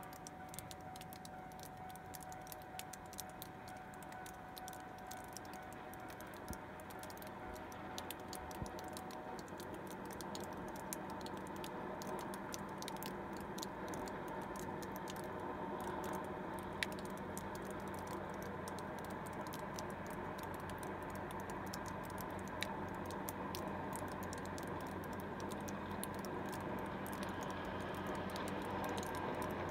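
A distant MCR800 rotary snowplow approaching along the track, its machinery a low drone that grows slowly louder, under a constant fine crackle of tiny clicks.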